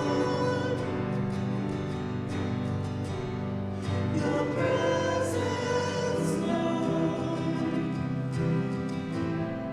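A Christian song: voices singing with instrumental accompaniment, including guitar.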